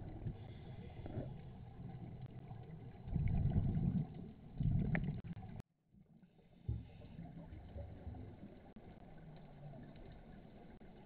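Muffled underwater noise picked up through a camera's waterproof housing, with two louder bursts of scuba exhaust bubbles of about a second each past the middle. It cuts off suddenly, then a quieter, steady underwater rumble follows.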